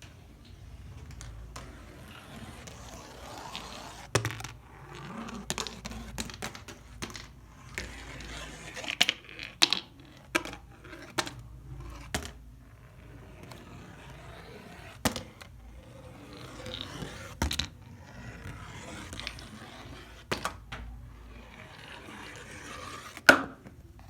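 Marbles rolling along a cardboard marble run: a rolling rattle with repeated sharp clicks and knocks as they drop and strike the track, the loudest knock near the end.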